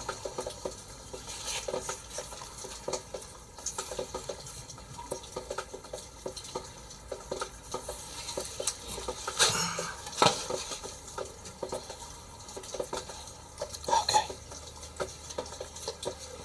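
Cord being wrapped and pulled tight around wooden poles while a clove hitch is tied: a run of small rustles and scrapes of cord on bark, with a few louder knocks about nine, ten and fourteen seconds in.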